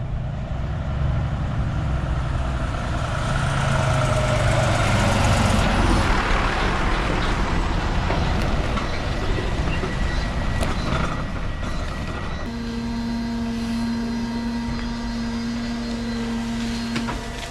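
Heavy diesel equipment working, a loud rumbling engine with a rough clattering noise over it. About twelve seconds in it settles into a steadier running hum with a clear pitched tone.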